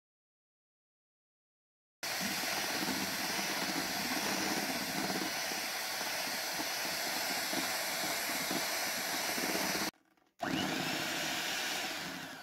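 Silence for the first two seconds, then an electric hand mixer running steadily, its twin beaters whipping instant coffee, sugar and hot water into a stiff foam in a plastic jug. It cuts out briefly near the end, runs again, then fades away.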